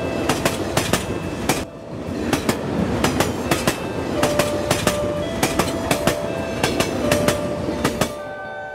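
Electric suburban local train moving past along the platform, its wheels clacking over the rail joints in a rapid run of clicks over a steady rumble.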